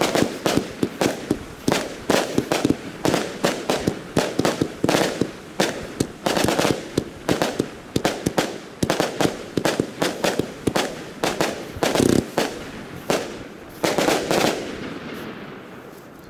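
Consumer fireworks cake (Funke Weissblinker-rot, white and red strobe effects) firing shot after shot: a dense run of sharp bangs and crackles, several a second. The shots stop about fourteen seconds in and the last reports fade away.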